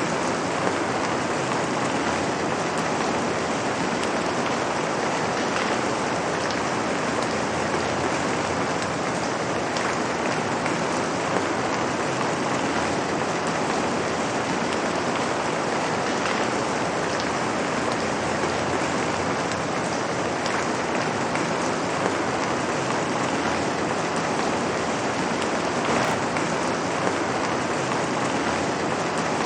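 Light rain falling steadily on pavement: an even hiss with faint scattered drop ticks.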